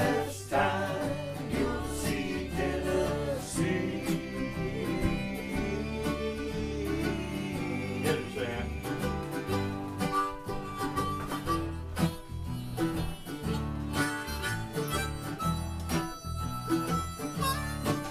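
Acoustic bluegrass band playing together: fiddle and acoustic guitars over a pulsing bass line, with a harmonica coming in toward the end.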